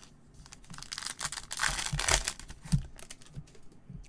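Foil trading-card pack wrapper crinkling and tearing in gloved hands, building from about half a second in and loudest around two seconds, followed by a few sharp clicks.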